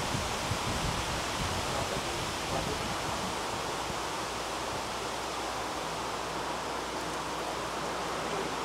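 Steady, even hiss of outdoor background noise at a constant level, with no distinct event standing out.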